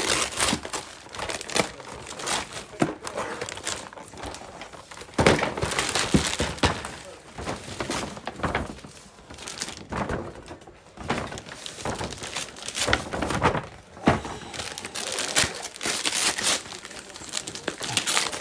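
Patterned gift wrapping paper being crumpled and torn off by hand, in irregular rustling bursts, with a few sharp knocks of packages being handled.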